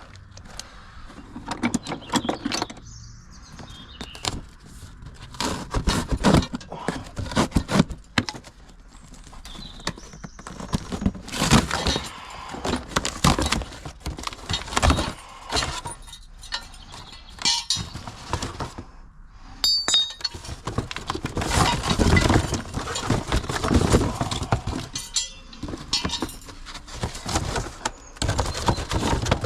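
Metal clanking and rattling from a jack and jack stands being worked under a car: irregular knocks, clinks and scrapes, in clusters throughout.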